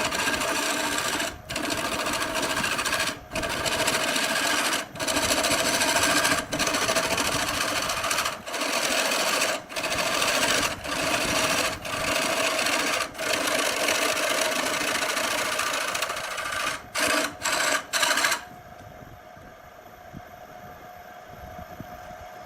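A power tool working wood, running steadily with short breaks every second or two. About 18 seconds in it gives way to a much quieter steady hum.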